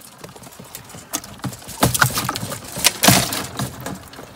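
Wire-mesh crawfish trap being handled and shaken, a run of metallic rattles and clanks, loudest about two to three seconds in.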